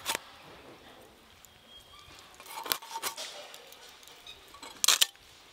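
Knife blade scraping scales off a whole fish, a few short rasping strokes at uneven intervals, the loudest pair near the end.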